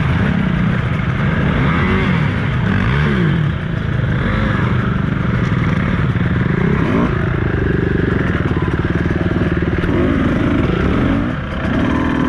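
Beta 200RR two-stroke enduro motorcycle engine riding a trail, its pitch rising and falling with the throttle. It dips briefly about three and a half seconds in and again near the end.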